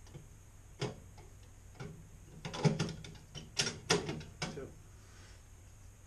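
A clear plastic bag crinkling and metal gas-burner tubes clinking as they are handled. There is a single click about a second in, then a burst of rustles and clinks in the middle.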